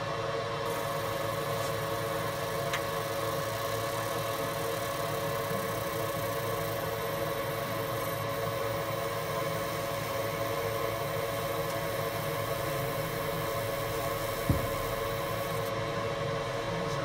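Enclosed laser marking machine running with a steady hum, plus a high hiss while the laser marks relief symbols into a brass plate; the hiss starts about a second in and stops about a second before the end. A single sharp knock near the end.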